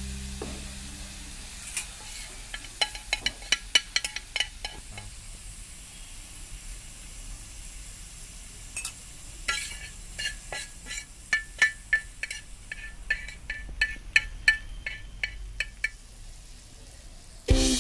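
A spatula striking and scraping an iron tawa while stirring a chicken and egg scramble, in two runs of quick clinking strikes, about two seconds in and again from about ten seconds in, over a faint frying sizzle.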